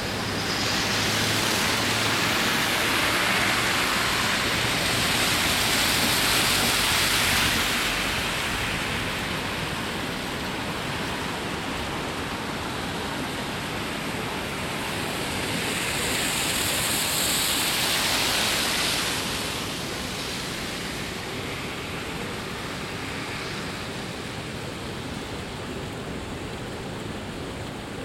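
Steady outdoor rushing noise, like running water or wet-road hiss, swelling louder in the first several seconds and again about two-thirds of the way through.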